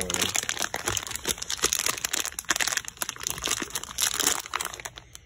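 Packaging being handled as a part is dug out of a cardboard shipping box: a dense, irregular run of plastic-bag crinkling and rustling that stops near the end.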